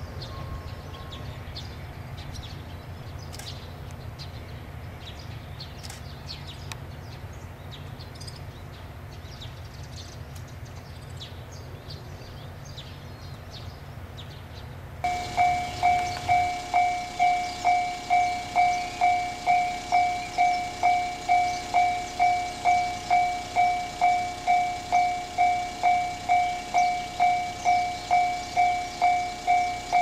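A train's low rumble with birds chirping. About halfway through, a Japanese railway level-crossing warning bell starts ringing, a loud two-tone ding about twice a second, signalling an approaching train.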